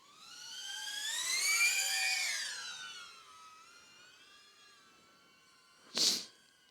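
BetaFPV Pavo20 Pro II cinewhoop drone flying, the whine of its ducted propellers rising in pitch and loudness, peaking about two seconds in, then falling and fading. A short burst of noise comes near the end.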